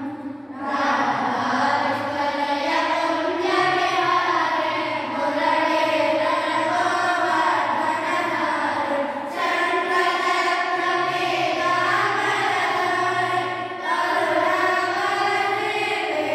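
A group of boys chanting a devotional aarti hymn together in unison, the melody running on with three brief pauses for breath.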